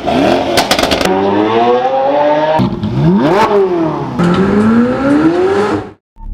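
Supercar engines accelerating hard in several short cuts, the pitch climbing through the revs each time, with a quick rev blip in the middle. A burst of sharp exhaust crackles comes about half a second in.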